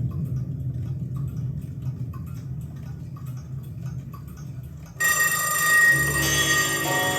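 Sony TC-FX707R cassette deck playing back its own recording on metal tape: a low hum with faint regular ticking, then music starts abruptly about five seconds in.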